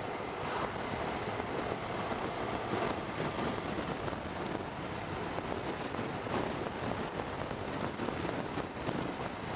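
Steady wind rush on the microphone of a motorcycle at road speed, mixed with engine and tyre noise.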